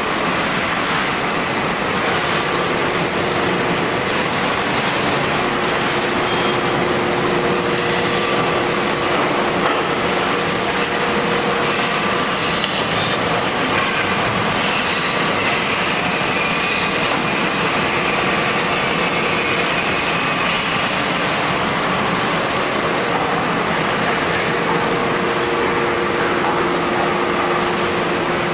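Elastic tape dyeing and finishing machine running: a steady, even whir with faint constant whines over it.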